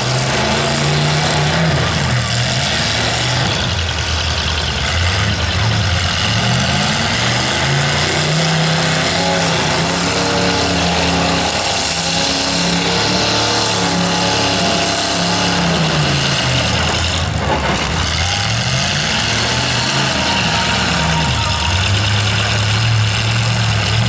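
Demolition derby pickup truck engines running and revving, the pitch rising and falling again and again, then settling into a steadier idle for the last few seconds.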